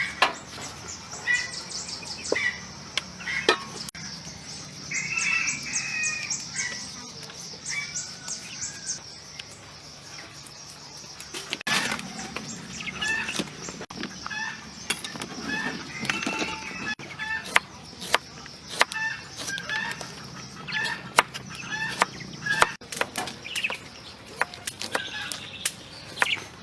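Chickens clucking, with a rooster crowing briefly about five seconds in and rapid high chirping through the first ten seconds. Irregular sharp taps run through the second half.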